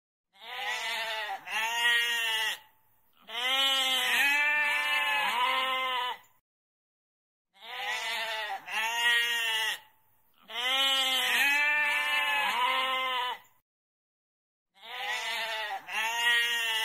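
Goat bleating: five bouts separated by short silences, alternating between a pair of short bleats and one long bleat whose pitch wavers up and down several times. The same pattern repeats.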